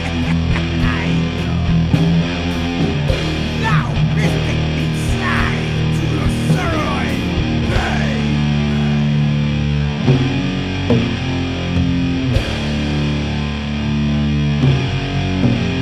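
Stoner/doom metal band playing a slow, heavy riff on distorted electric guitars, with long-held low notes and sliding guitar lines above them.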